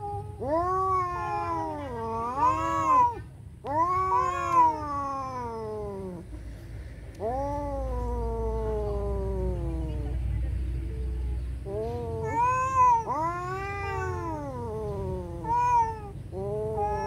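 Domestic cats yowling at each other in a standoff: a string of long, wavering caterwauls that rise and fall in pitch, the threatening growl-yowl cats trade before a fight.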